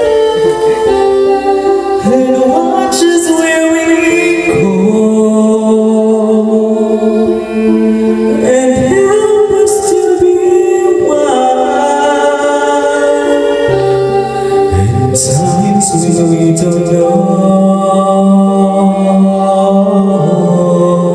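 A man singing a slow ballad, holding long notes and sliding smoothly between them, with other sustained notes sounding underneath.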